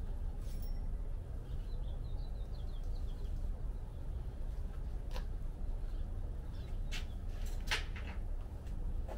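Outdoor background of faint bird chirping over a steady low rumble, with a few sharp clicks in the second half as small parts are handled at the outboard motor.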